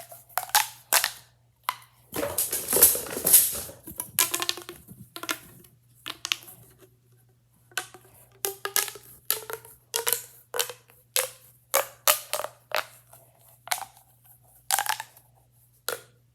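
Plastic pop tubes being squeezed and pushed back in. They make a run of short, sharp crackling pops, with a longer continuous crackle about two seconds in.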